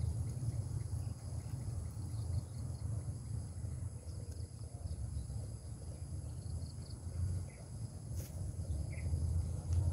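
Insects chirring steadily over an uneven low rumble of wind on the microphone, with a few faint short chirps and a single sharp click about eight seconds in.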